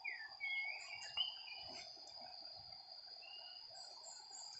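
Steady high-pitched insect drone, with a lower hum of more insects beneath it and a few short whistled bird calls, mostly in the first second and once more a little after three seconds. A brief click about a second in.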